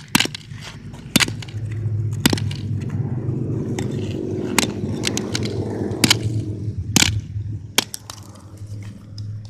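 Hammer blows smashing an old flip phone: about seven sharp cracking strikes, irregularly spaced a second or so apart, with plastic breaking.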